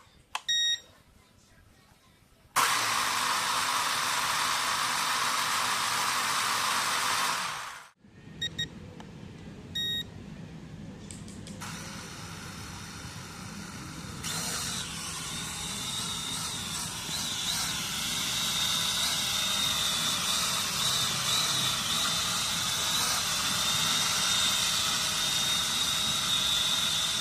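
E88 Pro toy quadcopter: a few electronic beeps, then its propellers whirr for about five seconds and cut off abruptly. After two more short beeps, the motors spin up again and settle into a steady whirring with a high whine.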